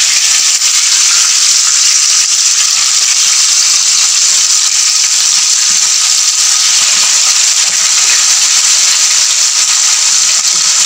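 Marinated chicken pieces deep-frying in hot oil in a pan: a loud, steady sizzle.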